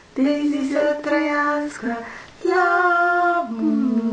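Voices singing a birthday song in long held notes, changing pitch from note to note.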